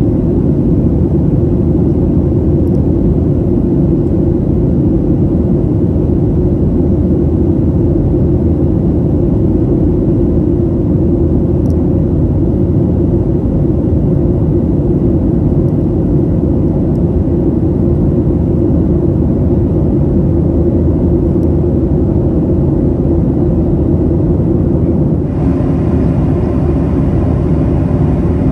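Steady low rumble of engine and airflow noise inside the cabin of a Boeing 737-800 in flight, from its CFM56-7B engines. About 25 seconds in, a slightly brighter hiss joins the rumble.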